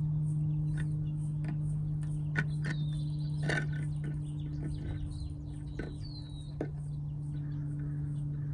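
Scattered light clicks and taps from hands handling a plastic reverse-light housing and its wire connectors. Under them runs a steady low hum, with a few high bird chirps in the background.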